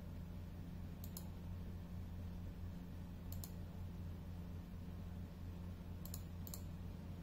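Light computer-mouse clicks in quick pairs, heard three or four times over a steady low electrical hum.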